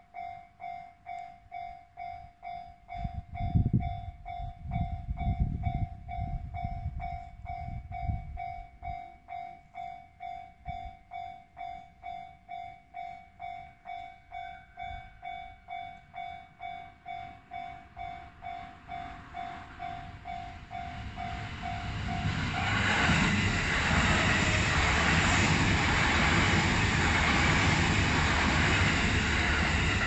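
Japanese level-crossing warning bell dinging in a steady rhythm, about one and a half strokes a second. A few low rumbling thumps come a few seconds in. From about two-thirds of the way through, the noise of an approaching train swells and stays loud, drowning out the bell.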